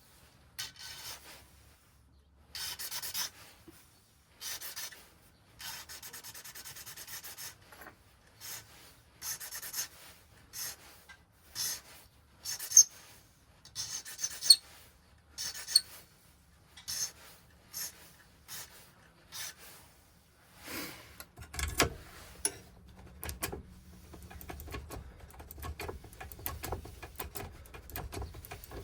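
A metal file worked by hand on a cut key to correct it: a series of separate rasping strokes with a few sharp clicks in between. A low steady hum joins in about two-thirds of the way through.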